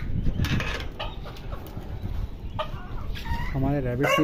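Chickens clucking, with a short call about two and a half seconds in and more calls near the end.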